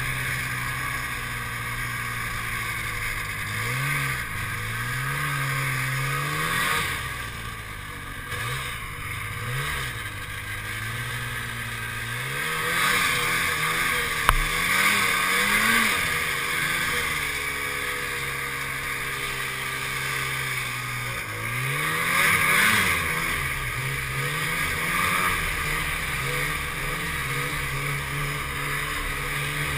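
Snowmobile engine running under the rider, revving up and dropping back again and again as it ploughs through deep snow, over a steady rushing hiss. A single sharp knock about fourteen seconds in.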